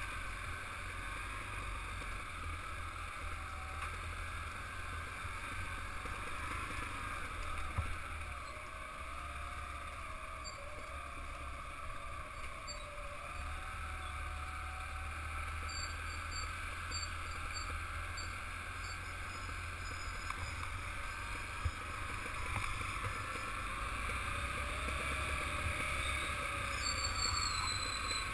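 Motorcycle running steadily along a rough dirt track, its engine and tyre noise mixed with a low wind rumble on the bike-mounted camera's microphone.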